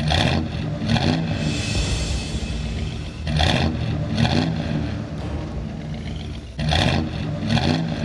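A vehicle engine revving, with three pairs of sharp surges about three and a half seconds apart.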